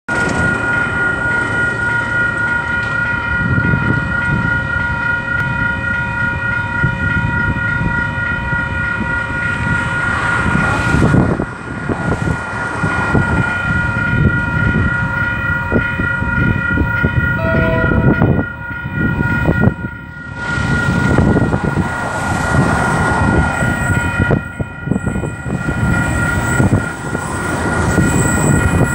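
Railway level-crossing warning bells ringing continuously as a train approaches, over gusty wind buffeting the microphone.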